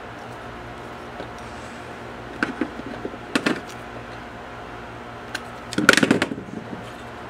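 Handling noise from a replacement extension-cord plug and its wire being worked by hand: short clicks and rattles in three small bursts, the loudest and longest about six seconds in, over a steady low hum.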